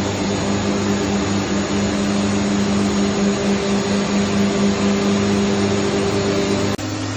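Steady drone of running FDY yarn spinning and winding machines: a low hum with a constant high hiss. The sound drops and changes abruptly near the end.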